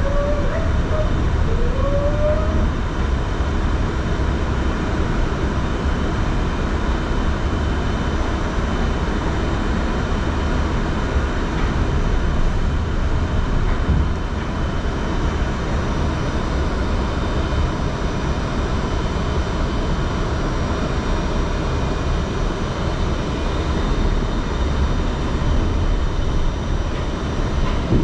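Staten Island Railway train running: a steady, loud rumble and roar of wheels on rails and traction motors, with faint steady whining tones above it.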